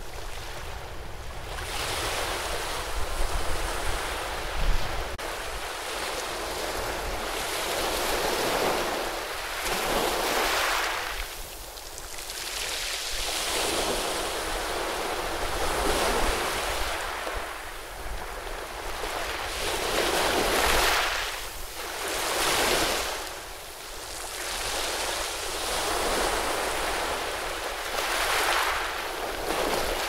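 Ocean surf breaking and washing in over a rocky shore: a continuous hiss of foaming water that swells and falls every few seconds as each wave comes in.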